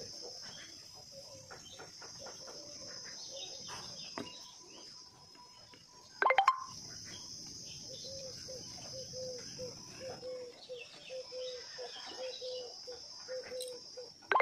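Outdoor ambience of birds chirping and calling, over a steady high-pitched hiss. A low note repeats about twice a second through the second half, and a short loud clatter comes about six seconds in.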